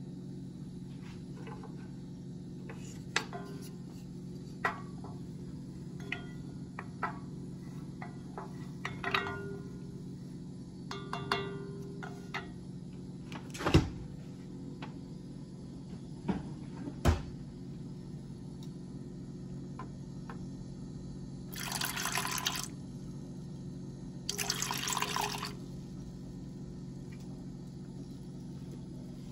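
A saucepan heating on a gas stove: a steady low hum, with scattered light clicks and knocks of a wooden spoon against the metal pan. The loudest is a sharp knock about halfway through as the spoon is laid across the pan. Two short bursts of hiss come a few seconds apart near the end.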